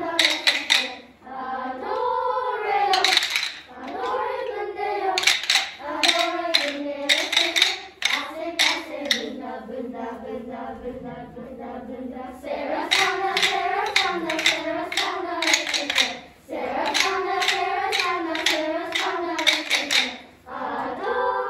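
A group of children singing a song in unison while tapping wooden rhythm sticks in a steady beat. The tapping pauses for a held note about ten seconds in, then resumes.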